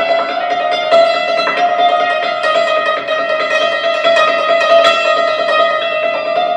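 Solo concert cimbalom played with hammers: quick runs of struck, ringing notes over one note that sounds on steadily underneath.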